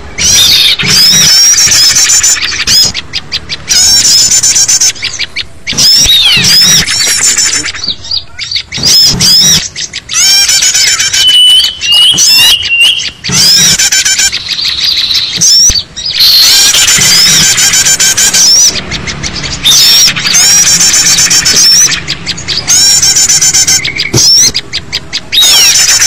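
Loud, dense chattering and chirping of many small songbirds, rapid high trills and twittering calls overlapping with short breaks. It is a bird-lure (pikat) recording, played to draw wild small birds in.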